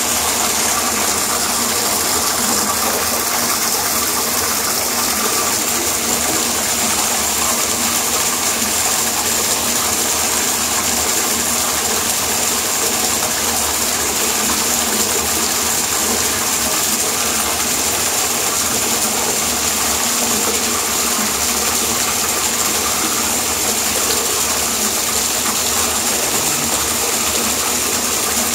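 Bathtub tap running steadily, water gushing from the spout into the tub.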